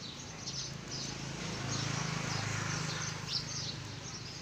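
Small birds chirping repeatedly, over a low hum that swells about halfway through and then fades.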